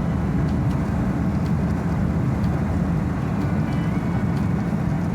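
Road noise inside a moving vehicle on a highway: a steady low rumble of engine and tyres, with faint regular ticking above it.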